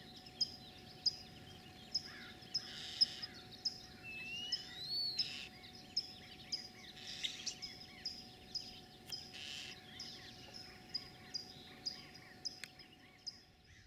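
A small bird's short high chirp repeats evenly, about three times every two seconds, with one rising whistle early on. Barn owls give a few breathy hisses of about a second each over it.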